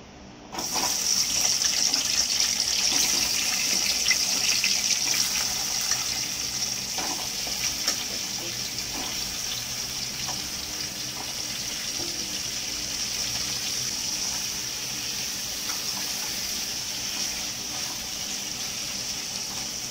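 Chopped raw potatoes sizzling in hot oil in a kadai, the sizzle starting suddenly as they go in and easing a little after the first few seconds, with a few faint ticks.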